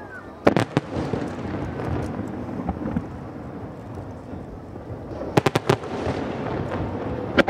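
Aerial firework shells bursting: two sharp bangs about half a second in, then a rolling rumble, then a quick cluster of about four bangs a little past five seconds and one more near the end.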